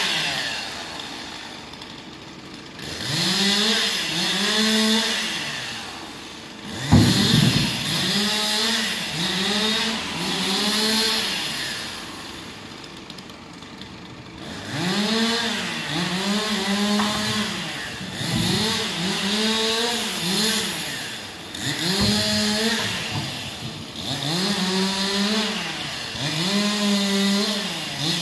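Chainsaw revved again and again while cutting up tree branches, each burst of throttle rising and falling in pitch, often two in quick succession. A loud thump about seven seconds in, with a lighter knock later.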